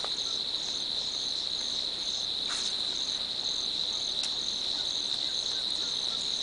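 Insects trilling: one steady high-pitched drone, with a second insect chirping in short, evenly spaced pulses about twice a second. A couple of faint ticks sound over them.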